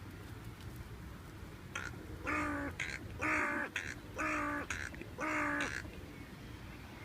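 A crow cawing four times, harsh and loud, about one caw a second, with shorter fainter calls between them, over a steady low rumble.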